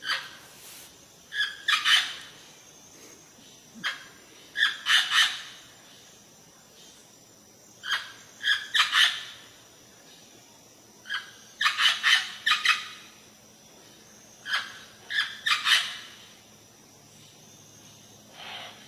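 A bird calling over and over: short, high phrases of three or four quick notes, repeated about every three seconds.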